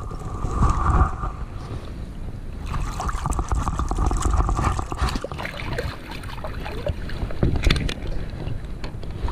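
Creek water splashing and sloshing around a landing net held in the stream while a brown trout is unhooked by hand in the net, with irregular knocks and rustles of handling.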